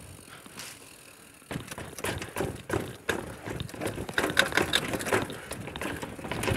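Mountain bike rattling and knocking as it rolls down stone steps and paving, with a dense run of irregular clicks and clatters starting about a second and a half in.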